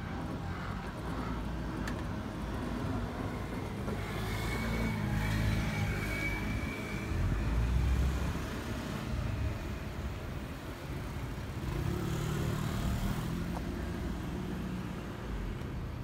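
Low, steady vehicle rumble that swells to its loudest about eight seconds in, with a faint high whine from about four to seven seconds in.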